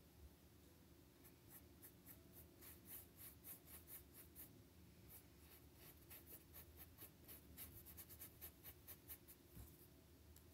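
Paintbrush bristles scratching across a stretched canvas as acrylic paint is brushed on, in a run of quick, faint, scratchy strokes, several a second. They start about a second in and stop near the end.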